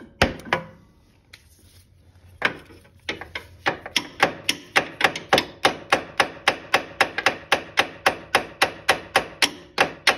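Hammer blows on a metal punch, driving the retaining pin into the front CV axle of a 2001 Polaris Scrambler 400: a few separate strikes, then from about three seconds in a steady run of about four blows a second.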